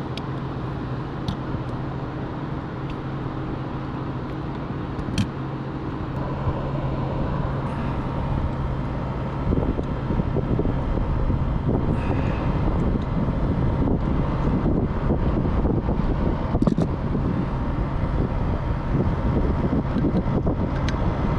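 Steady low rumble and hiss of outdoor background noise, like traffic or wind on the microphone, growing louder about halfway through, with a few faint clicks.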